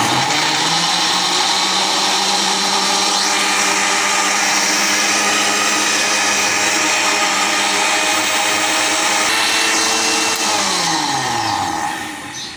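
Panasonic mixer-grinder blender motor running at full speed, liquidising cucumber pieces with water in its glass jar with a steady high whine. About two seconds before the end it is switched off and winds down, its pitch falling away.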